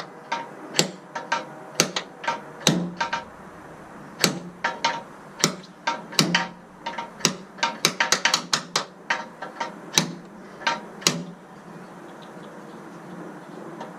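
Hammer striking the removal tool to drive the old liner out of a Jeep Wrangler JK door hinge: a run of sharp, irregular metallic taps, each with a short ring, quickening into a fast flurry about eight to nine seconds in and stopping a couple of seconds before the end.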